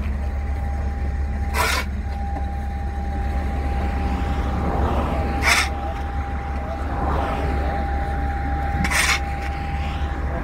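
A steel shovel scraping across the ground as it scoops spilled beets, three strokes a few seconds apart, over a steady low rumble and a faint steady whine.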